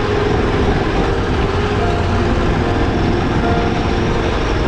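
Adventure motorcycle engine running steadily under way on a dirt track, mixed with wind noise on the bike-mounted microphone.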